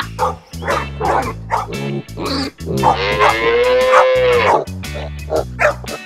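Playful background music with a steady beat under animal sound effects: short dog barks, then a long animal call that rises and falls in pitch about three seconds in.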